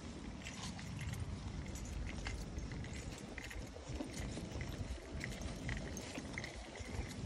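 Outdoor wind rumbling unevenly on a phone's microphone in gusty, rainy weather, with scattered faint light ticks over it.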